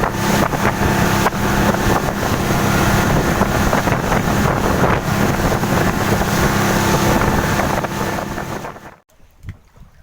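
Fishing boat's engine running underway, a steady hum under heavy wind and water rush on the microphone; it cuts off abruptly about nine seconds in, leaving only faint sounds.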